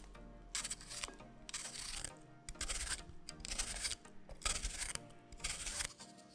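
Chef's knife slicing through a fresh cucumber held in the hand, a crisp crunch about once a second as each round is cut off. Soft background music plays underneath.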